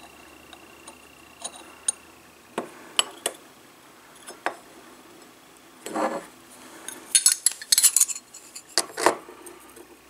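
Steel knife blade and steel ratchet handled and fitted together by hand: scattered sharp metal clicks and clinks, a short scrape about six seconds in, then a quick flurry of clinks around the eight-second mark.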